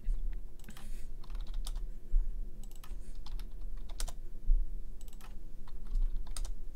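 Typing on a computer keyboard: short, irregular runs of keystrokes, over a low rumble.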